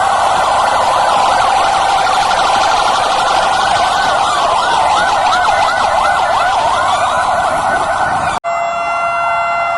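Several police car sirens sounding together, their wails and rapid yelps overlapping in rising and falling sweeps. Near the end the sound cuts off abruptly and is followed by steadier, held siren tones.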